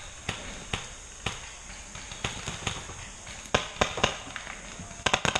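Paintball markers firing: scattered single pops, then a quick burst of five or six shots near the end.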